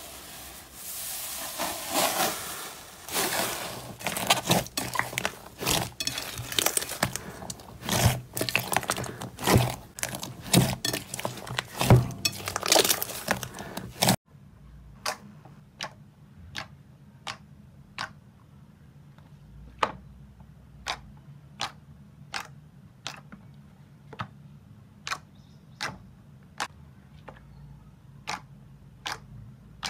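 Hands squishing and pressing slime, with dense crackling and squishing for about the first fourteen seconds. After a sudden cut, a hand pushing into a thick slime gives separate sharp pops and clicks about once a second over a faint low hum.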